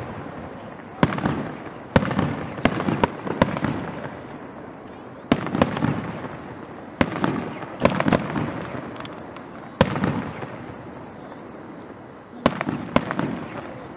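Fireworks display: aerial shells bursting in a string of sharp bangs every second or two, several in quick succession, each dying away in a long echo.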